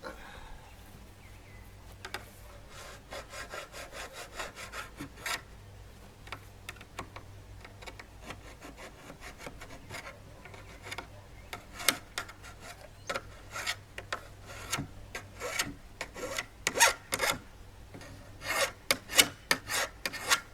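Rasping, rubbing strokes in quick runs: a short run a few seconds in, then a longer, louder run through the second half.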